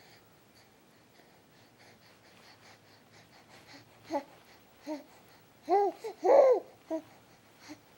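A baby's short vocal sounds: after a few quiet seconds, seven brief squeaky calls, each rising and falling in pitch, come in quick, uneven succession over the last four seconds.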